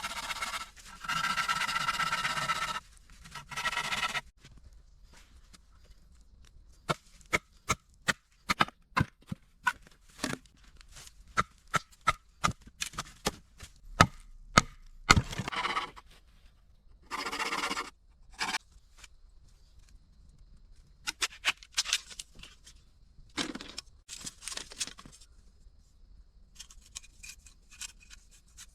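Work on bamboo with a blade: several long scraping or sawing strokes, then a run of sharp single chopping knocks from a little before the halfway mark, with more scraping strokes in between and later.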